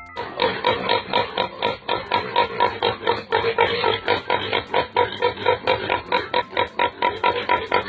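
An animal giving a fast, steady series of short repeated calls, about five a second.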